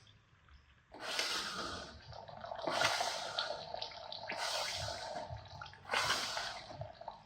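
Rough scraping and rustling bursts from handling the parts of a split NV273F transfer case, with a faint steady hum underneath.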